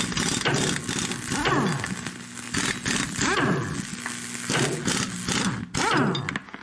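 Metal-cutting sound effect: a dense hiss of sparks full of small cracks, over a whining tone that falls in pitch every second or two.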